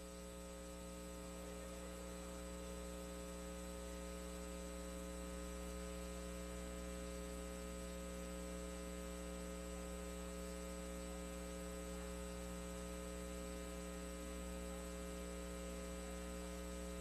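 Steady electrical mains hum in the audio feed, a constant buzz with many overtones and nothing else over it.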